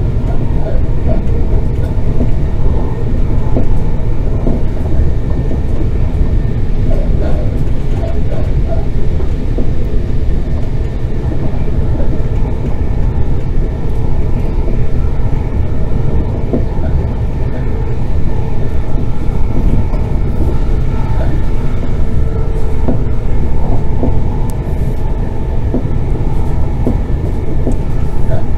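Class 380 Desiro electric multiple unit running, a loud steady rumble with faint steady tones above it.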